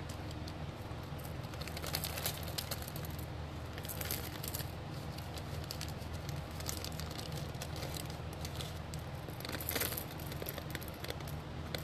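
Small plastic zip bag crinkling and glass beads clicking together as the last beads are shaken out of the bag into a palm, in irregular clusters of little clicks over a steady low hum.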